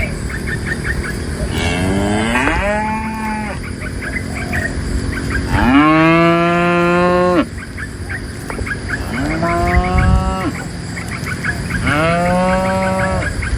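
Cows mooing, four long calls a few seconds apart; the second is the loudest and longest.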